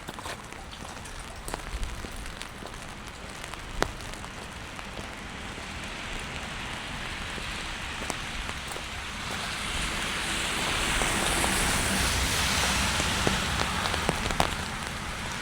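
Rain falling on wet pavement, a steady hiss that swells to a louder rush from about six seconds in, peaks near twelve seconds and eases toward the end. A couple of sharp ticks stand out, one about four seconds in and one near the end.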